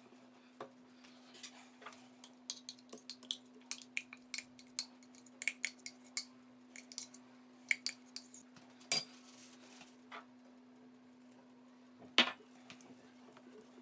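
A spoon clinking and scraping against a jar and a stainless steel mixing bowl as sour cream is scooped into batter: a run of quick, light clicks, then one louder knock near the end, over a low steady hum.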